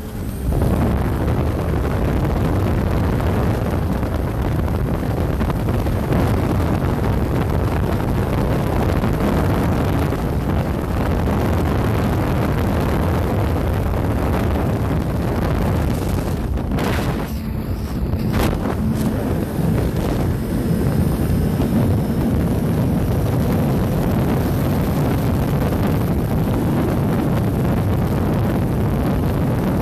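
Heavy wind rush buffeting the microphone on a motorcycle at highway speed, mixed with the motorcycle running. A little past halfway the rush briefly drops, with two sharp knocks.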